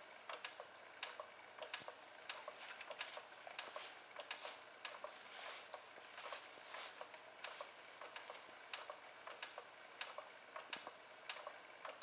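Baby swing's mechanism ticking and clicking quietly, a few light clicks a second with an uneven beat.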